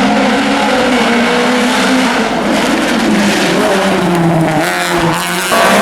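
Rally car engine running hard on a special stage, its note rising and falling with throttle and gear changes. The note drops off about four seconds in, and the sound changes abruptly near the end.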